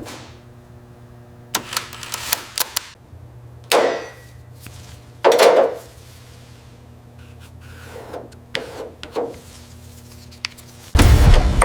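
Workshop tool noises over a low steady hum: scattered sharp clicks and knocks, and two louder short noisy bursts a little over a second apart. Music starts near the end.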